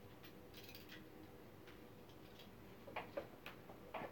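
Faint handling noise of a small plastic bag holding a gold speaker binding-post connector as it is picked up and opened: a few soft ticks, then several sharper small clicks in the last second or so.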